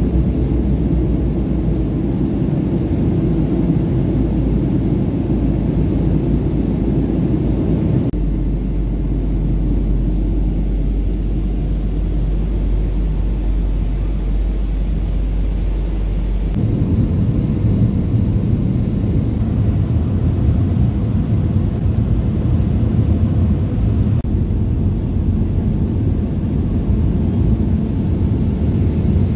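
Steady low rumble of a Boeing 737-500's cabin in flight during descent: the CFM56-3 turbofans and the airflow over the fuselage. The tone of the rumble shifts abruptly about eight seconds in and again about sixteen seconds in.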